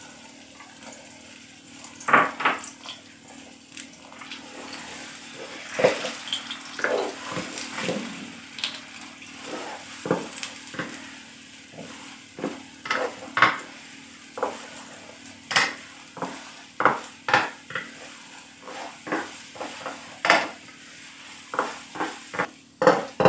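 Beaten eggs frying in oil in a non-stick wok with a low, steady sizzle. A wooden spatula knocks and scrapes against the pan as the eggs are stirred and broken up, in irregular strokes from about two seconds in that come more often in the second half.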